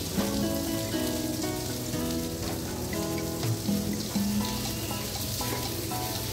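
Background music over a steady hiss of water spraying from a hose wand onto the metal frame of an ice machine.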